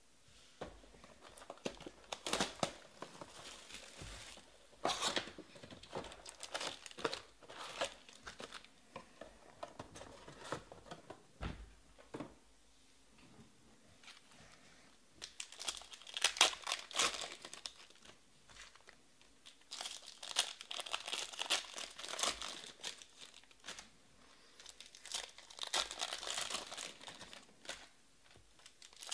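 Foil wrappers of Panini Prizm Baseball trading-card packs crinkling and tearing as they are handled and opened by hand, in irregular bursts with short pauses between.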